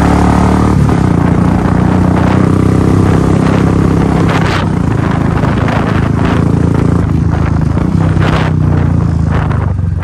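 Royal Enfield Bullet's single-cylinder engine running steadily at riding speed, heard from the rider's seat. A rushing wind noise lies over it, with a few short gusts.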